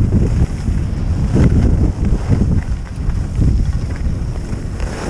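Wind buffeting an action camera's microphone during a fast ski run, a loud low rumble mixed with skis scraping over hard-packed snow. It surges about a second and a half in and again after three seconds, and eases near the end.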